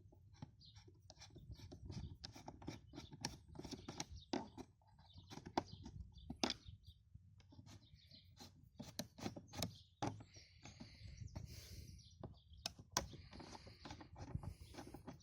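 Irregular clicks, knocks and rustling of handling noise over a low rumble, a few sharper knocks standing out, the loudest about 13 seconds in.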